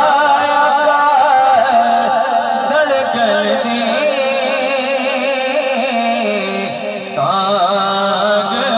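A male naat singer holds long, ornamented sung notes through a microphone and loudspeaker. The phrase dips about seven seconds in, then a new phrase begins.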